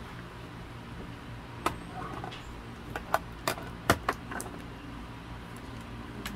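A handful of sharp clicks and taps as a multimeter and its test leads are handled and set down on a table, the loudest about four seconds in, over a steady low hum.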